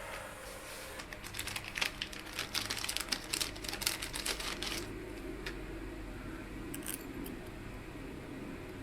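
A quick run of small clicks and crinkles from about a second in until nearly five seconds in, from the new motorcycle chain master link and its parts being handled, then only a low steady hum.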